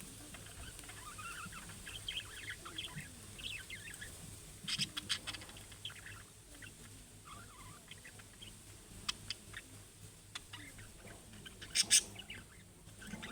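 Budgerigars chattering with soft warbling chirps, mixed with scattered sharp clicks and taps; the loudest cluster of clicks comes near the end.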